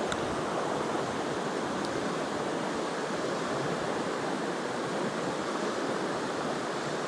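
Mountain stream water rushing steadily, an even wash of flowing water.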